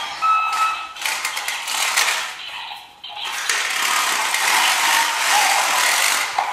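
Toy bulldozer's small geared mechanism whirring with rapid clicking, pausing briefly about three seconds in and then running on more steadily.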